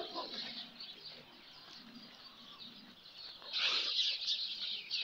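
Many small birds chirping continuously in the background, the chirping swelling louder a few seconds in.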